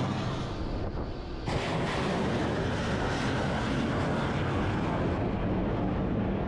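A ship-launched missile's rocket motor as it climbs away: a steady rushing noise mixed with wind on the microphone. It dips just before a second in and comes back abruptly half a second later.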